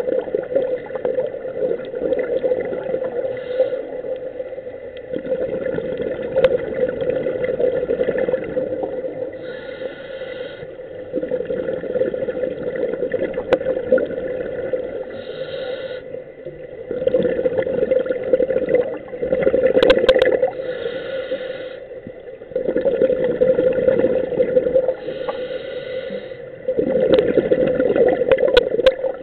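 Scuba breathing heard underwater through a regulator: a brief hiss on each inhalation about every five to six seconds, and louder rushes of exhaled bubbles, strongest in the second half. A steady hum runs underneath.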